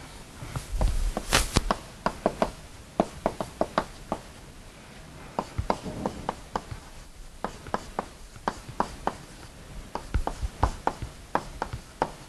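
Chalk on a blackboard during writing: an irregular run of short, sharp taps and clicks as the chalk strikes and drags across the slate.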